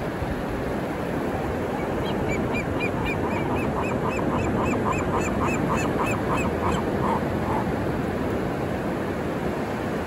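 Gull squawking in a rapid run of short repeated calls, about four a second, starting about two seconds in and trailing off some five seconds later. Steady rush of crashing ocean waves underneath.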